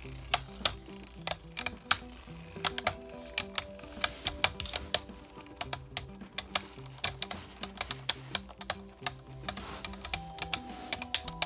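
3D-printed plastic Beyblade spinning tops clashing in a stadium: a rapid, irregular run of sharp clacks, several a second, as the tops strike each other and the stadium wall. Background music with low changing notes plays throughout.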